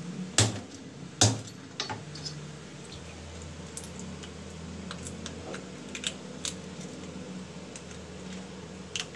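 Two hard chops of a cleaver through a mud crab onto a wooden cutting board, about a second apart, then scattered light clicks of crab shell being handled and broken apart.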